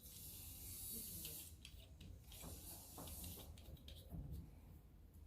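Faint handling of a plastic ring-light phone holder: soft scattered clicks and rubbing, with a hiss during the first second or so and a low steady hum underneath.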